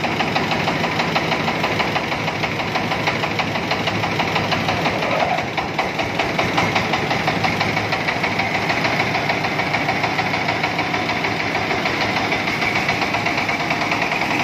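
Engine of a mobile rice-milling machine running steadily with a fast, even knocking beat.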